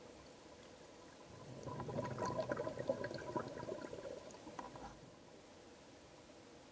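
Diver's exhaled air bubbles gurgling and crackling underwater, starting about a second and a half in and fading out about five seconds in. A faint steady hum runs underneath.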